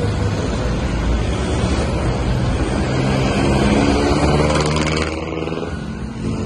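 Road traffic: motor vehicle engines running, one rising in pitch as it speeds up about four seconds in, with a short rush of noise near the end as it goes by.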